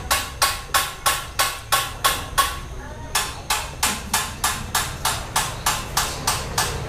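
Steady hammering, sharp blows about three a second, with a short break about two and a half seconds in. A low hum runs underneath.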